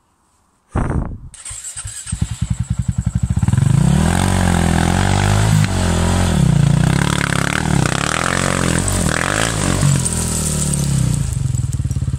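Husaberg 450 single-cylinder four-stroke enduro engine starting: it fires unevenly at first and catches about two seconds in, after the bike had been stalling and not starting well. It then revs up and down before settling to a steady idle near the end.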